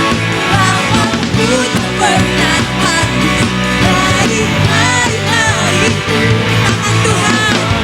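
A worship band playing a rock-style praise song, with electric guitar prominent.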